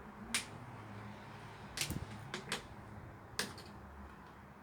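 Handling noise: about six sharp clicks and taps, spread unevenly, over a faint low steady hum.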